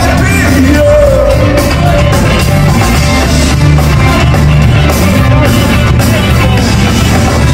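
Rock band playing live and loud: drums, bass and electric guitars, with a voice singing over them.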